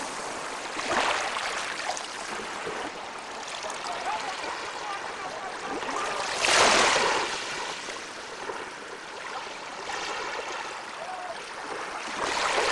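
Water rushing and splashing along the hull of a sailing outrigger canoe under way, with swells of louder splashing about a second in, strongest about six and a half seconds in, and again near the end.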